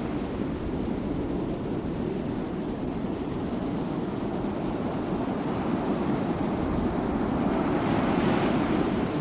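Sea waves washing on a shore: a steady rushing wash that eases off and then swells again near the end as the next wave comes in.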